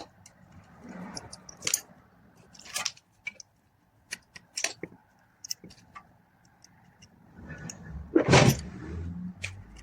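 Scattered metallic clicks and clinks of tools and parts during motorcycle repair work, with a louder clatter about eight seconds in.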